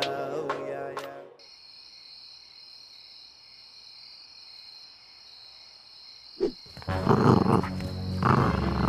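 A song stops about a second in, leaving a steady high chirring of crickets. Near the end a spotted hyena growls loudly, twice.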